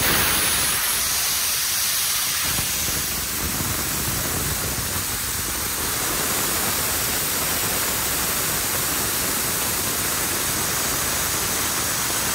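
Compressed air hissing steadily out of an opened ball valve on a piston air compressor's tank. The tank is being bled down from 8 bar so the pressure switch will cut the compressor back in.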